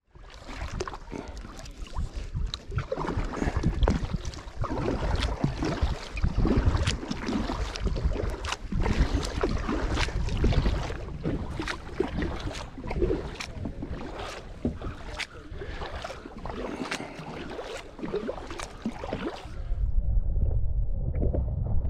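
Double-bladed kayak paddle dipping and pulling through water: irregular splashes and drips, with wind rumbling on the microphone. Near the end the splashing stops and a muffled low rumble takes over.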